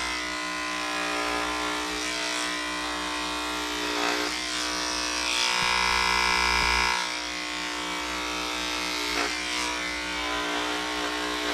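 Electric dog grooming clippers fitted with a 7 blade, running with a steady buzzing hum as they shave down a Standard Schnauzer's coat; the hum gets louder and brighter for a second or so midway.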